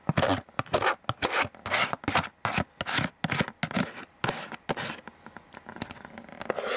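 A metal spoon scraping and knocking against a black plastic takeout container as thick hashed beef sauce is scraped out of it: a quick, irregular run of short scrapes that thins out near the end.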